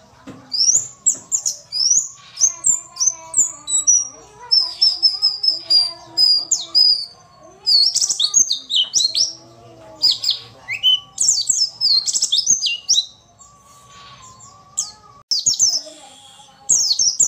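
Caged white-eye (pleci), a female according to the uploader, singing fast high twittering chirps and trills, with a run of quick repeated notes and a short pause near the end. Used as a lure song to get male white-eyes to answer and sing.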